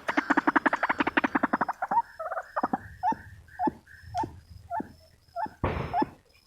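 White-breasted waterhen calling: a fast run of croaking notes for about two seconds, slowing into separate short upward-sliding notes about twice a second. A brief rustling burst comes near the end.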